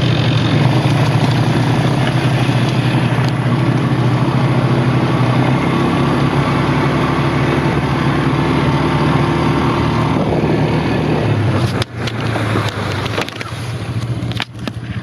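Off-road vehicle engine running hard at a steady pitch, easing off about ten to eleven seconds in. The sound breaks off briefly twice near the end.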